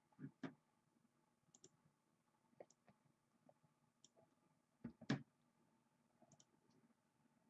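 Near silence: faint room tone with scattered small clicks and two soft knocks, one about half a second in and a louder one about five seconds in.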